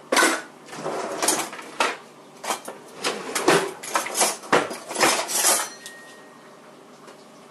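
Metal pie server clanking and scraping against an enameled cast-iron Dutch oven in a quick run of sharp knocks, as cornbread is cut and pried out of the pot. The clanking stops a little before six seconds in.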